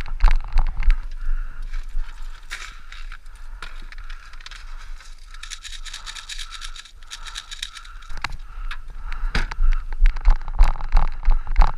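Clattering and scraping of gear and equipment being handled and moved, with irregular clicks and rattles, a stretch of rapid fine ticking in the middle, and low thumps on the microphone.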